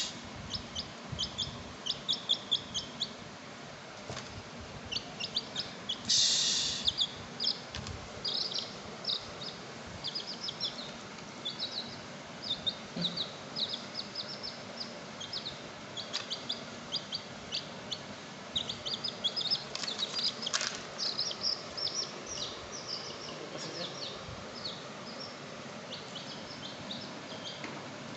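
Baby chick peeping: runs of short, high-pitched cheeps repeated throughout, with one short harsh noise about six seconds in.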